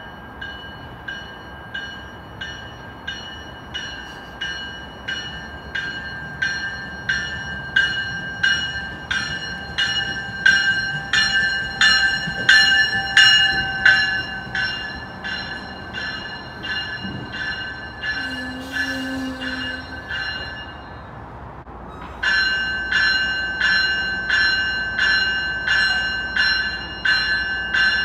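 An MBTA commuter rail train's warning bell ringing steadily at about two strokes a second as the train comes into the station, getting louder as it draws level, over the low rumble of the train. The bell stops briefly about two-thirds of the way through, then starts again.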